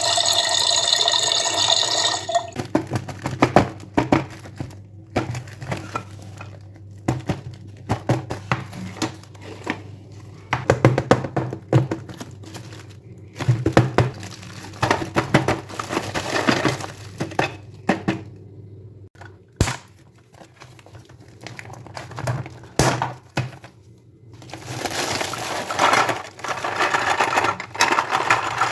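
Plastic toy pieces and packaging being handled: many sharp clicks and taps with bouts of crinkling. A pitched, many-toned sound fills the first couple of seconds.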